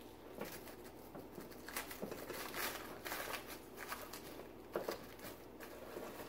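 Plastic cling wrap over a bowl crinkling faintly in irregular rustles as it is handled, with a couple of sharper crackles near the end.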